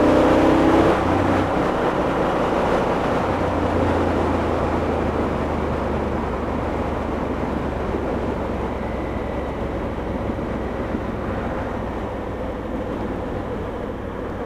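2016 Honda Africa Twin DCT's parallel-twin engine running at road speed, mixed with heavy wind noise on the microphone. The whole sound eases off gradually as the bike slows.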